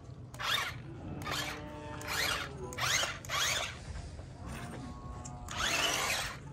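Battery-powered toy stunt RC car's electric drive motors whining in short bursts as it is driven in spurts, the pitch rising as each burst speeds up; about six bursts, the longest near the end.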